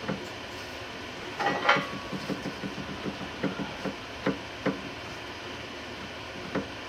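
Rivet nut (nutsert) being set with a hand tool: a rattling metallic crunch about a second and a half in, then a run of short, irregular clicks and knocks, with one more near the end.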